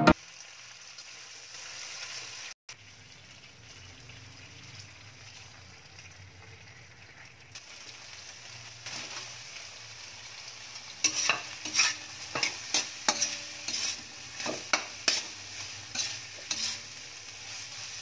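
Food frying in a metal wok with a low, steady sizzle. From about eleven seconds in, a metal spatula scrapes and stirs against the pan in sharp strokes, about two a second.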